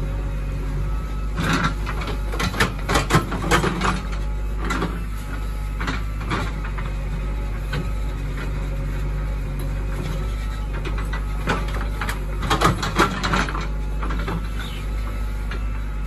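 JCB backhoe loader's diesel engine running steadily under digging load, with two spells of clattering and scraping as the backhoe bucket works through soil and stones, about a second and a half in and again near twelve seconds.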